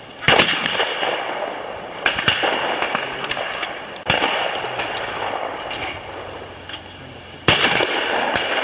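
Shotgun shots at a clay shooting range: four sharp reports spread a couple of seconds apart, each trailing off in a long echo.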